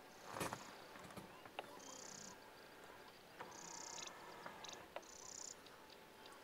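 Faint grassland ambience with an insect's short, high buzzing call repeating about every one and a half seconds. A single dull bump comes about half a second in.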